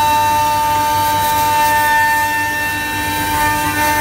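Spindle of a Holztek D2400CNC door lock and hinge boring machine running with a steady high whine over a rush of noise.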